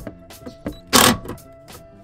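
Cordless impact driver running a bolt into a car-door speaker bracket in short bursts, the loudest about a second in, over background music.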